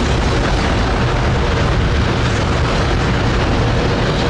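Space Shuttle Main Engine (RS-25, liquid hydrogen and oxygen) firing on a test stand: a loud, steady rocket roar with a deep rumble and no break in level.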